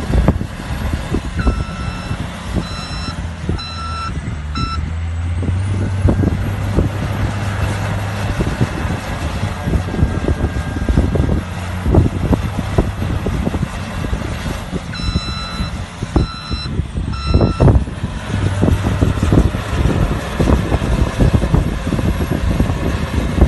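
Reversing alarm of a heavy machine beeping in two spells over a steady engine rumble, with scattered knocks and clanks.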